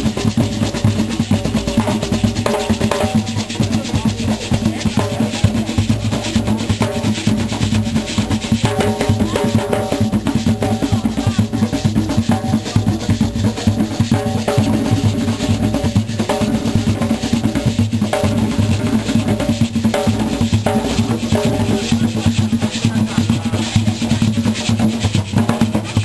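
A group of hand drums, large frame drums among them, played together in a fast, steady, continuous rhythm.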